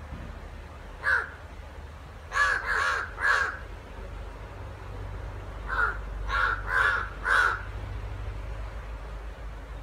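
Crows cawing while fighting on the ground: a single caw about a second in, a quick run of three between about two and a half and three and a half seconds, and a run of four more between about six and seven and a half seconds.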